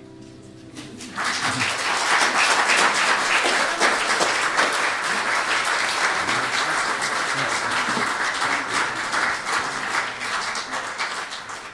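An acoustic guitar's final chord dies away, and about a second in an audience breaks into applause, clapping steadily and thinning out near the end.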